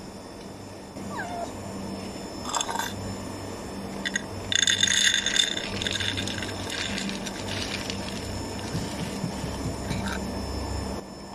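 Pet food poured from a plastic scoop into a bowl: a few knocks, then a clattering rattle lasting about a second and a half near the middle, over a steady low hum.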